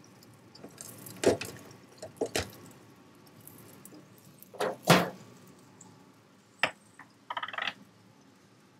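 Scattered knocks and clunks from disposable aluminium pan covers being handled and set down over a flat-top griddle: a handful of sharp separate knocks, with a short rattle near the end.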